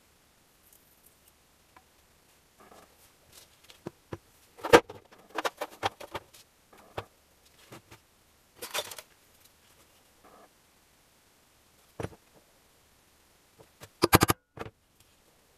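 Gasket paper and tools being handled on a workbench, with scattered rustles and clicks. Near the end comes a quick run of light hammer taps, cutting a paper gasket to shape by tapping it against the part beneath.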